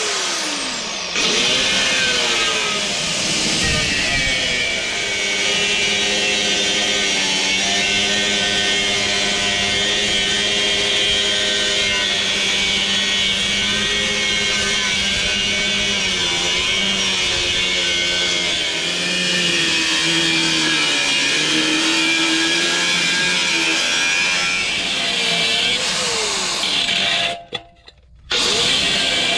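Electric power tool running steadily, its pitch dipping and recovering as it bears on the work; it cuts out briefly near the end.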